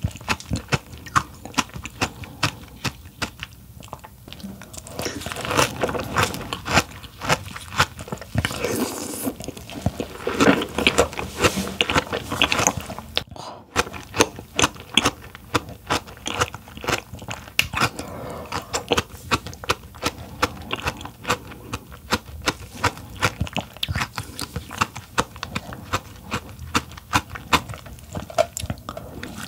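Close-miked eating sounds of king crab: chewing and crunching, with many sharp clicks and cracks throughout.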